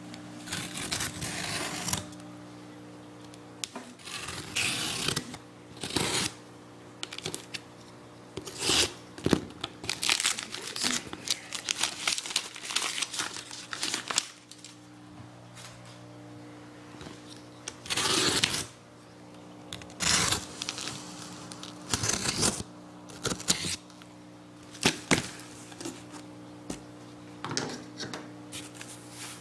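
Cardboard box being opened: a utility knife cutting through packing tape, then tape and plastic tearing and crinkling as the box is handled, in irregular bursts with short pauses. A steady low hum runs underneath.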